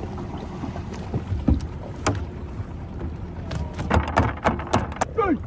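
Knocks and taps on a small fishing boat over a low, steady rumble of wind and water, busiest in the second half. Near the end comes a short cry that falls in pitch.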